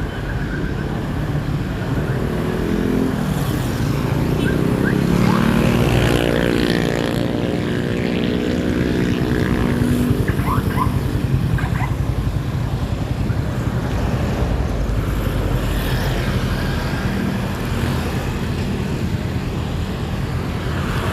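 Road traffic running by at close range, with one vehicle engine rising and then falling in pitch as it passes, a few seconds in.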